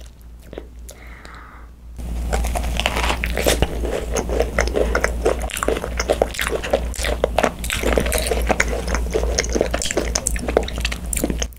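Close-miked biting and chewing of a filled macaron (ddungcaron): the meringue shells crackle and crunch in a dense run of small clicks, starting abruptly about two seconds in.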